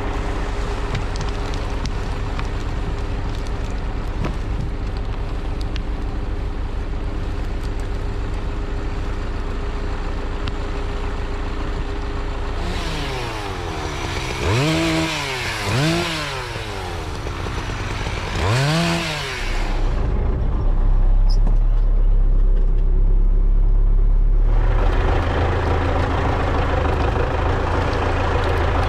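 A diesel engine running steadily, which the setting points to as the MTZ-82 tractor. Midway an engine revs up and back down three times in quick succession. A louder, deep drone follows for a few seconds before steady running resumes.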